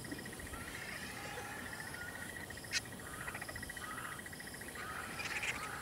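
Insects such as crickets trilling steadily in a fast pulsing rhythm, with short repeated higher chirps and a few brief whistled calls over it. A single sharp click comes a little under three seconds in.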